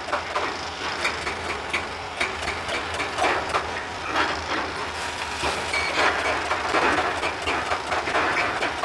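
Excavator working in rock: a steady low engine hum under many irregular metallic clanks and knocks of rock and steel.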